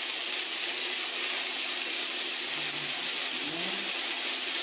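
Pork and vegetables sizzling steadily in a frying pan on an induction cooktop. Two short high beeps come from the cooktop's controls early on, as the heat is lowered.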